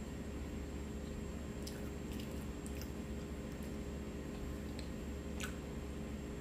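Soft chewing and mouth sounds of someone eating chicken pot pie, with a few faint clicks of a fork on the plate, over a steady low hum.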